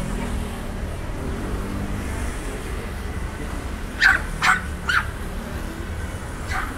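Dog barking three times in quick succession, then once more, fainter, near the end, over steady street background noise.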